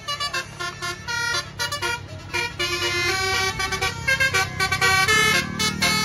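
Basuri telolet horn on a tour bus playing a quick tune of short, changing notes. A low engine rumble grows near the end as a vehicle pulls up.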